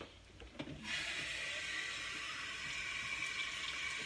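Kitchen faucet turned on about a second in, water running steadily into the sink, after a couple of light knocks.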